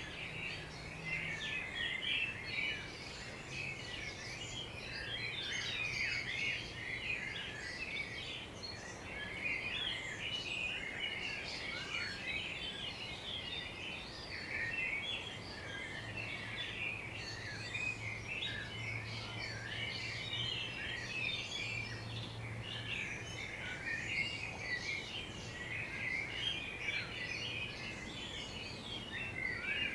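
Many songbirds chirping and singing at once, a dense overlapping morning chorus of quick chirps and trills, over a faint steady low hum.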